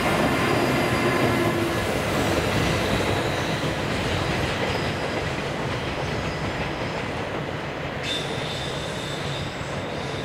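Container freight train hauled and banked by JR Freight EF210 electric locomotives running past on an uphill grade: a dense rumble of wheels on rail with some wheel squeal, loudest at first and easing as it draws away. About eight seconds in, a thin high steady squeal sets in.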